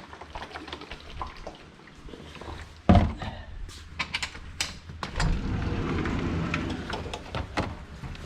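A heavy thump about three seconds in, among scattered sharp clicks and knocks, then a steady low rushing noise through the second half.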